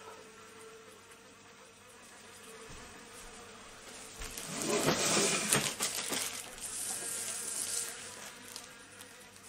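Honeybee buzzing close by. About halfway through, a clear plastic bag crackles loudly as the larva-grafting tool is taken out of it.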